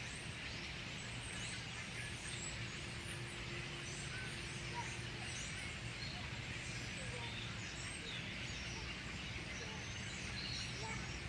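A large flock of birds calling all at once: a dense, steady chorus of many overlapping short chirps and whistles, over a low steady rumble.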